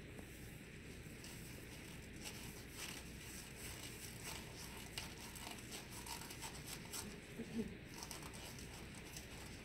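Sterile glove being pulled onto a hand: faint crinkling and rustling of the glove material as the fingers work in, with one louder brief sound about three-quarters of the way through.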